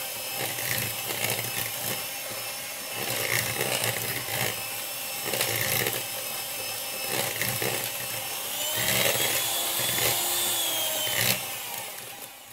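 Siemens electric hand mixer running, its beaters whipping a thick egg, sugar and nut batter in a bowl. It winds down and stops near the end.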